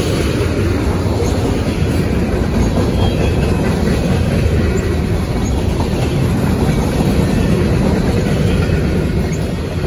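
Freight train's tank cars and boxcars rolling past close by: a steady, loud rumble of steel wheels on the rails.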